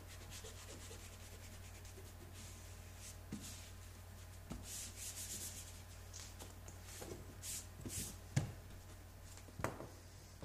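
A hand rubbing and smoothing a flap of EPDM rubber membrane onto a primed wall to bond it, in a series of soft swishing strokes. Two short knocks come near the end.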